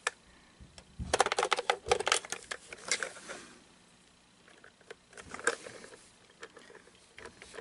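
Plastic shell of an animatronic toilet toy being handled and turned over: a quick run of clicks and knocks for about two seconds, a pause, then one more knock.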